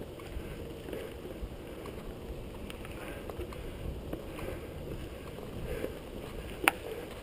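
Mountain bike riding fast down a dirt forest trail: a steady rumble and rattle of tyres and bike over the ground, with many small knocks and one sharp clack near the end.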